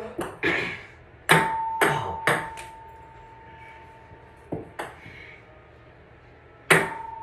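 Ping pong ball bouncing with sharp clicks and striking a small metal cup, which rings with a steady tone about a second in that lasts about three seconds; a few more bounces follow, and the cup rings again near the end.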